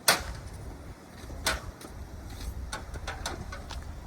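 A sharp knock right at the start, a second knock about a second and a half in, then a few fainter clicks, over a steady low rumble.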